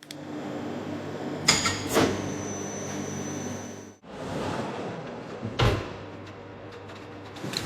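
Production-line machinery humming steadily, with a couple of sharp clunks and a brief thin high whine. About halfway it cuts abruptly to a hissier machine sound with one more thud.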